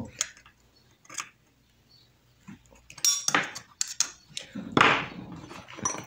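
Scattered light clicks and scrapes of small metal fan-motor parts being handled and pressed together as a ball bearing is pushed into its seat against a spring retaining clip, with a short rushing noise about five seconds in.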